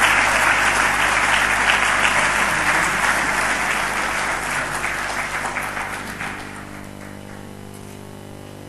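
Audience applauding, a dense patter of many hands clapping that dies away over a second or two about six seconds in, leaving a low steady hum.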